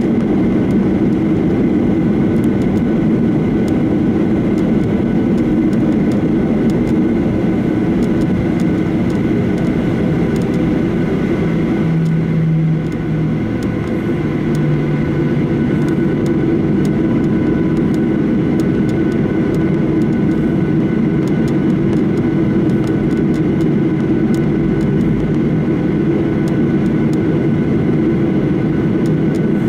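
Steady cabin noise of a Boeing 737-800 holding for takeoff: the CFM56 engines at idle with a constant hum and air rush, and several steady whining tones. The noise dips briefly about twelve seconds in, with a short low drone.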